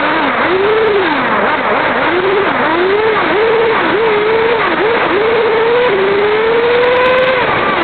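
Kyosho RC car's motor, heard from a camera riding on the car, its pitch climbing and dropping again and again as the throttle is worked, then held in a long slow rise for about a second and a half near the end before falling away. A steady rush of wind and road noise lies under it.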